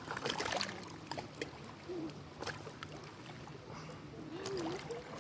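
Small waves lapping and splashing irregularly against a lakeshore. Faint distant voices come through now and then.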